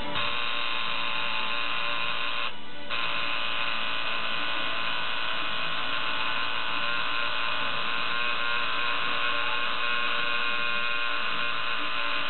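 Coil tattoo machine buzzing steadily as the needle works ink into skin, stopping for about half a second some two and a half seconds in before starting again.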